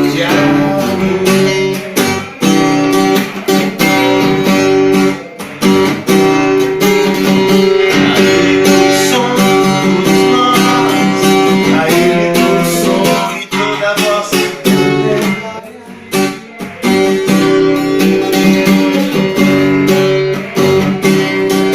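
Acoustic guitar strummed and picked, playing a chord progression with steady rhythmic strokes, briefly dropping off a few times.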